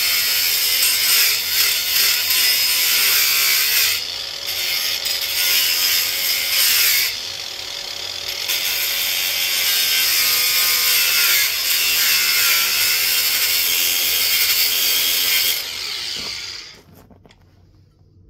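Cutoff wheel on a power tool grinding through aluminum plate: a loud, harsh high-pitched grinding whose motor pitch wavers under load. It eases twice, about four seconds in and again around seven to eight seconds, then the tool stops shortly before the end.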